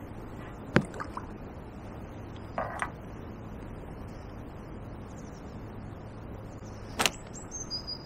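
Quiet outdoor riverbank ambience: a steady hiss with a few sharp clicks and knocks, the loudest about a second in, and a brief high bird chirp near the end.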